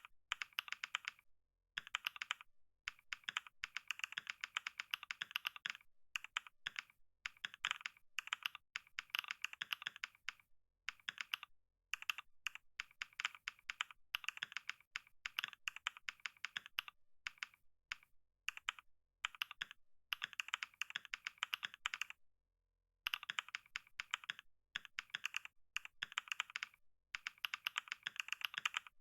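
Fast continuous typing on a computer keyboard: dense key clicks in runs of a few seconds, broken by brief pauses, one longer pause a little after two-thirds of the way through.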